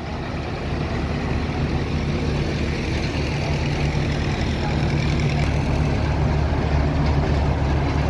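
Allis-Chalmers tractor engine idling steadily, growing gradually louder as it is approached.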